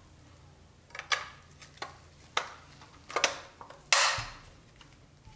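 Chrome metal trim, a bumper and grille, clicking and clacking against a pressed-steel Nylint Bronco toy body as it is fitted by hand. About half a dozen sharp clinks, the loudest about four seconds in, ringing briefly.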